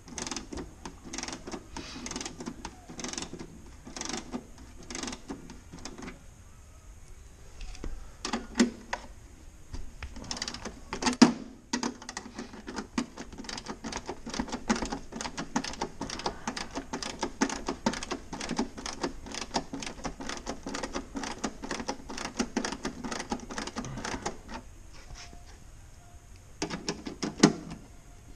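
Rapid, irregular clicking and light knocking as hands and a tool work the fasteners of a light aircraft's fibreglass main-gear wheel pant, with a few sharper knocks.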